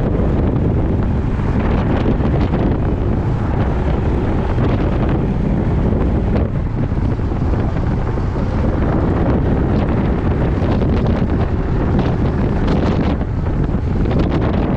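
Heavy wind buffeting on the microphone of a moving scooter, a loud, steady rush heaviest in the low end, with the motor and road noise of the Yamaha Majesty 400 underneath.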